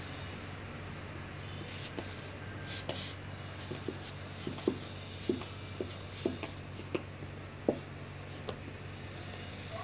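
Dog chewing a hard red rubber bone toy: a scrape, then a string of short squeaks and clicks of rubber against teeth and the tile floor, over a steady low hum.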